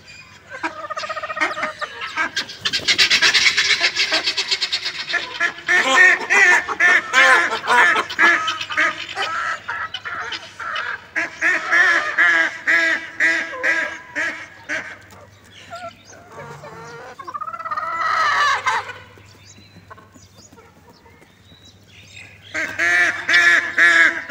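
Farmyard fowl calling: several bouts of loud, rapid, repeated harsh calls, with quieter gaps between the bouts.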